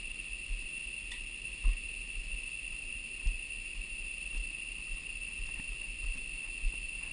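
Steady high-pitched drone of insects in tropical forest, with a few dull low thumps from footsteps on a plank suspension bridge.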